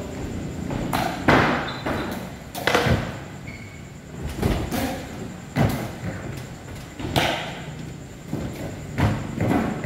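Skateboards on wooden ramps: wheels rolling with a rumble, and board thuds and knocks every second or two, about eight in all at uneven spacing.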